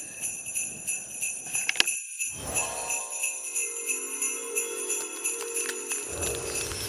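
Sleigh bells jingling in a steady, even rhythm. About two seconds in, sustained pitched notes join them, as in a backing music track.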